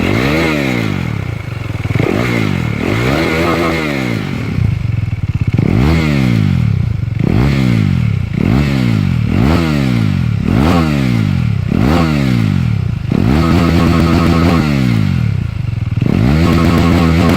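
KTM Duke 390 single-cylinder engine breathing through an Akrapovic slip-on exhaust, revved over and over. Each blip rises and falls about once a second, and near the end a couple of revs are held a little longer.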